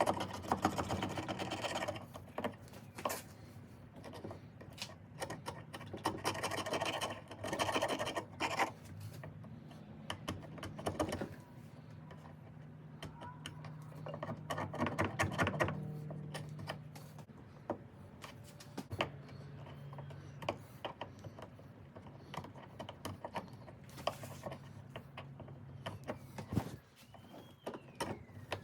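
Scraping and rubbing at the soft rubber grip of a ratchet handle as the material is worked off, with many scattered clicks and knocks. A low steady hum comes in about halfway through and again near the end.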